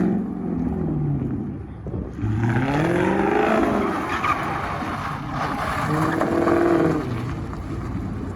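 Dodge Charger V8 revved hard in repeated swells, the pitch climbing and falling back twice, as the car does a burnout.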